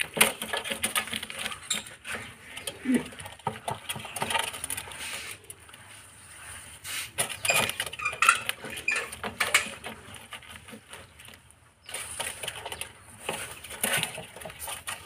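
Mongoose chewing a fish: a quick, irregular run of crisp crunching clicks, with a couple of short quieter pauses.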